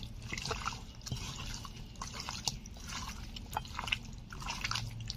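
Raw chicken pieces being kneaded by hand with a wet marinade of spices, mustard oil and lemon juice in a metal kadai. The mixing makes irregular squelching and squishing, with a few sharp clicks as pieces knock against the pan.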